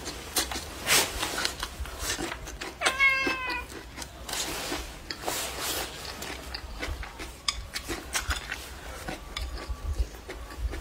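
A cat meows once, a short call about three seconds in, over close-up chewing and crunching of a green chili pepper.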